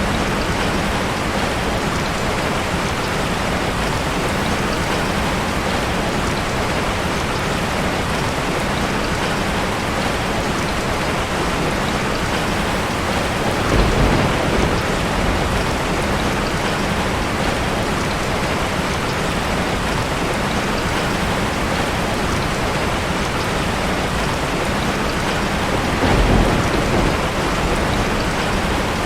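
Steady heavy rain, with two short low rumbles of thunder, one about halfway through and one near the end.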